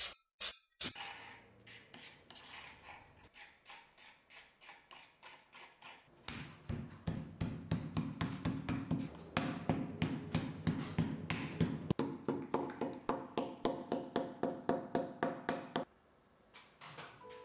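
Wooden mallet beating a sheet of zisha (purple) clay flat: a steady run of dull thuds, about three to four a second, beginning about six seconds in and stopping shortly before the end. This is the stage of flattening the clay into a strip for slab-building a teapot. Faint soft taps come before the thuds.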